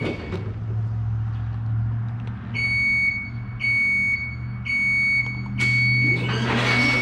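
Scissor lift's electric hydraulic pump motor humming steadily as the lift is tried out to see if it works. From about two and a half seconds in, its motion alarm beeps about once a second.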